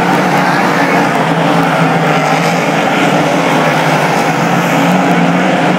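Several winged speedway race cars' engines running together on a dirt oval, a loud, steady, buzzing drone with no clear break or crash impact.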